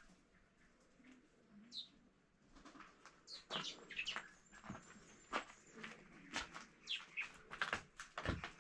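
Birds chirping, a few short calls each falling in pitch, over irregular scuffs and crackles that start about two and a half seconds in.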